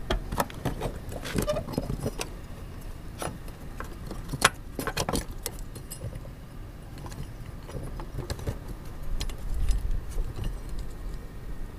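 Plastic wiring connector and its metal mounting bracket handled by hand: scattered clicks, rattles and light knocks, the loudest about four and a half seconds in.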